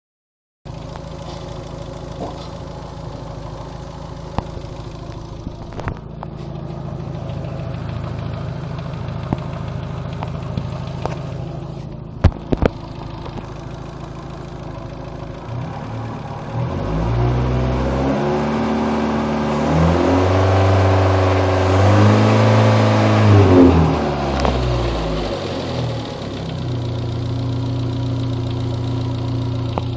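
Second-generation Dodge Neon's four-cylinder engine idling, revved up about halfway through, held for a few seconds, then let back down to idle. The owner hears a strange noise in the engine and cannot place it. A couple of sharp clicks come near the middle.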